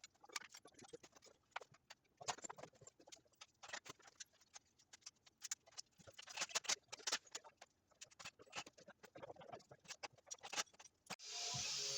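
Scattered light clicks and taps at irregular intervals, like small parts and hand tools being handled. Background music starts near the end.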